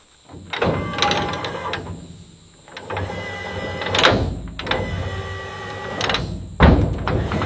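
A small motor whirring in several short bursts of one to two seconds each, with sharp clicks and knocks between the bursts.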